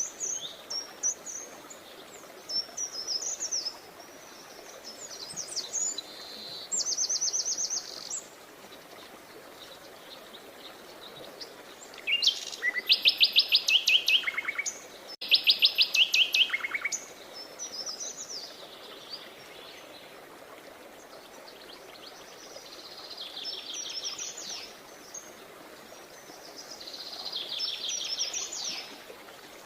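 Songbirds singing: a series of high chirps and fast trilled phrases, the loudest trills in the middle, over a steady faint background hiss.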